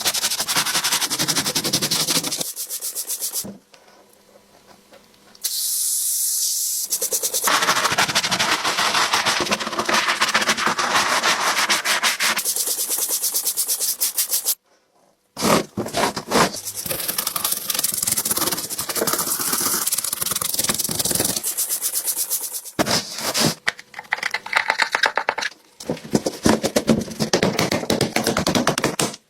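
Rapid rubbing and scrubbing strokes from cleaning work on an old keyboard during its restoration. The strokes come in long runs, broken by a quieter stretch early on, a brief silence about halfway through and a few short pauses near the end.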